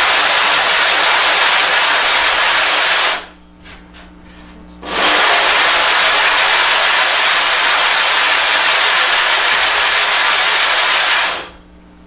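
Sharpening stone being lapped flat on a sheet of plate glass with loose silicon carbide grit: a steady, loud gritty scraping. It pauses for about a second and a half a few seconds in, then goes on and stops near the end.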